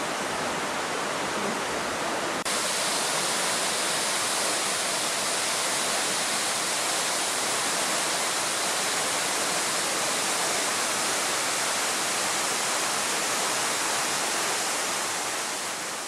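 Steady rush of a mountain river flowing over rocks. About two seconds in, it cuts to the louder, brighter, unbroken rush of a tall waterfall.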